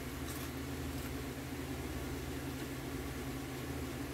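Steady low mechanical hum, with two faint crunches of the cracker in the first second.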